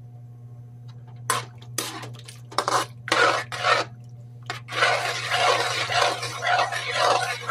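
A spoon stirring a thin sauce of carrot strips and onion in a metal wok, scraping and sloshing against the pan. It starts as a few separate strokes about a second in, then turns into continuous stirring through the second half.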